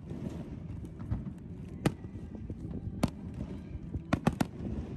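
Aerial fireworks shells bursting: single sharp bangs about two seconds in and three seconds in, then a quick run of three a little after four seconds, over a low background rumble.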